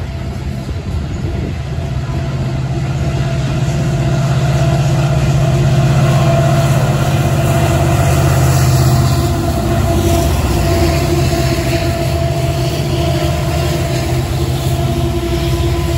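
Freight train rolling past close by: the wheels of loaded covered grain hoppers rumble and clatter on the rails. A set of Montana Rail Link helper locomotives passes about halfway through, their diesel engines running as a heavy low drone that is loudest around then. The hopper cars' wheel noise follows after them.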